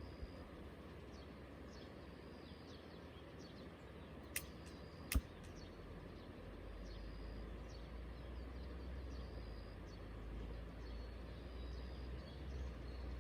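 Outdoor ambience with small birds giving short high chirps every second or so over a steady hiss. Two sharp clicks come about four and five seconds in, and a low rumble builds from about halfway.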